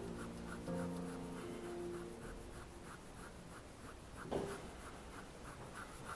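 Pen scratching on paper in quick, repeated hatching strokes, several a second, as dark shading is built up in a drawing. Faint musical notes sound over the first couple of seconds, and there is one brief louder tap or scrape a little past four seconds.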